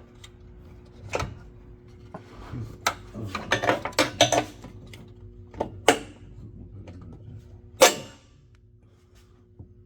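Scattered metal clanks and knocks as a steel sub-frame connector is handled and pushed into place under the car, the loudest single knock near the end, over a steady low hum.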